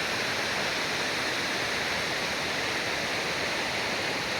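Waterfall: water falling in a steady, even rush with no breaks.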